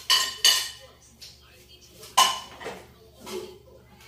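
Metal spoons and forks clinking against ceramic bowls during a meal: sharp ringing clinks, the loudest at the very start, about half a second in and just after two seconds, with softer clinks between.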